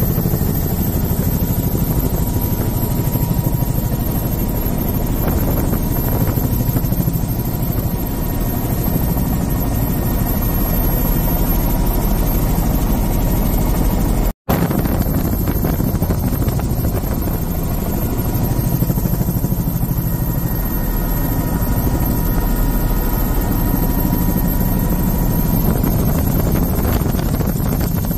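Tour helicopter's rotor and engine running steadily in flight, a dense low drone with a fast rotor flutter. It cuts out for an instant about halfway through, then carries on.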